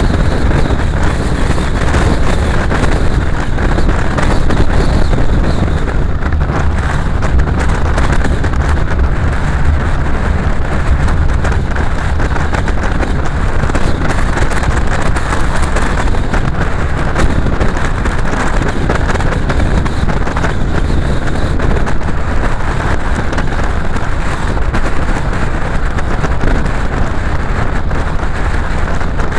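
Steady rumble and hiss of a car driving along at road speed: engine, tyre and wind noise.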